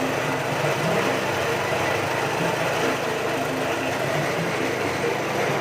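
Peanut grinding mill driven by a Nishikawa engine, running steadily.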